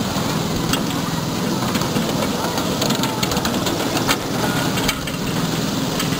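Ride-on miniature train running along its track: a steady rumble of the train under way, with irregular sharp clicks from the wheels on the rails.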